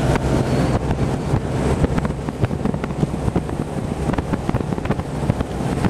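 Outboard motor of a Ranger bass boat running steadily at speed, with wind buffeting the microphone and irregular knocks.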